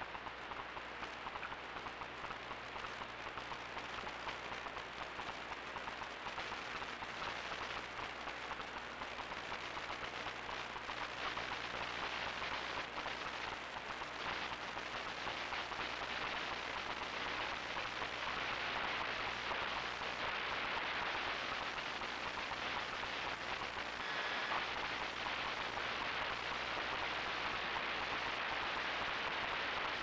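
Steady rain pattering on fallen leaves, growing slightly louder over the first half.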